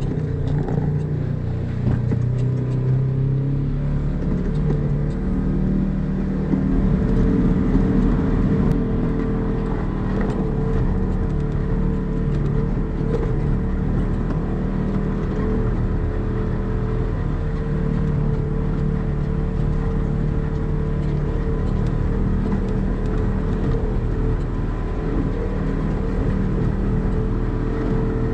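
Polaris RZR side-by-side's engine running steadily while driving a rough dirt trail, its pitch shifting a little in the first few seconds, with small knocks and rattles from the bumps.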